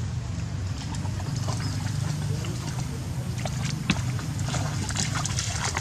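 Macaques wading and splashing in shallow muddy water: scattered small splashes and drips, busier toward the end, over a steady low hum.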